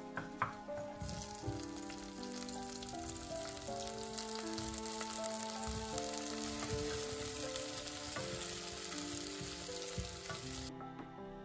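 Mixed vegetables (broccoli, carrots, green beans and baby corn) stir-frying in hot oil in a non-stick saucepan, stirred with a wooden spoon. The sizzle starts about a second in, stays steady, and cuts off suddenly near the end. Soft background music plays under it.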